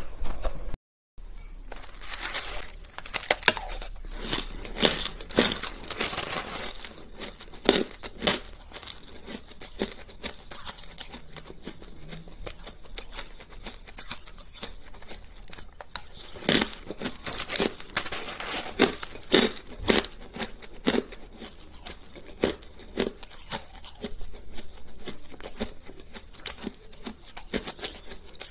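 Frozen shaved ice crunching and crackling as it is scooped with a plastic spoon and bitten, an irregular run of sharp crisp crunches. There is a brief silent break about a second in.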